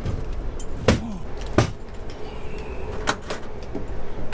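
Sleeper-car seat cushions and berth fittings being handled while a train car is under way: a handful of sharp clicks and knocks, the loudest in the first two seconds, over the car's steady rumble and hum.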